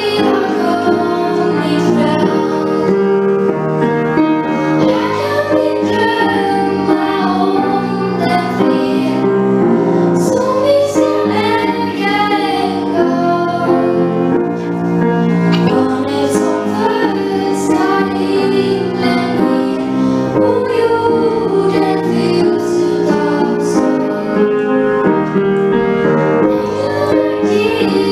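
Two girls singing a Swedish Christmas song in duet into handheld microphones, over a sustained instrumental accompaniment.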